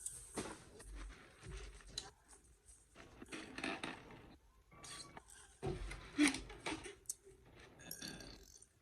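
Takeout food containers and wrappers being handled and cleared away: irregular rustling, scraping and light clicks and knocks, with one sharper click about six seconds in.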